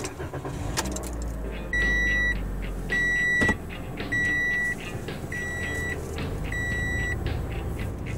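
Car engine starts and idles with a low rumble while a dashboard warning chime beeps five times, a little over once a second, each beep a single high tone lasting about half a second; the first beeps are loudest.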